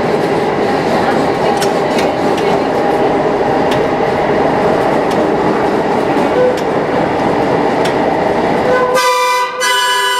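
Vintage trolley running through the tunnel, its wheels rumbling steadily on the rails with occasional clicks, then two short horn toots near the end.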